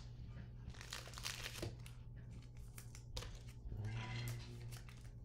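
Faint crinkling and rustling of foil trading-card pack wrappers and cards being handled, with scattered light clicks.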